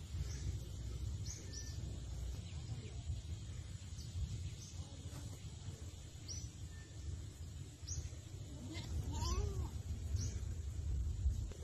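Outdoor ambience: a steady low wind rumble on the microphone, with a small bird chirping in short high notes every second or two, and a wavering animal call about nine seconds in.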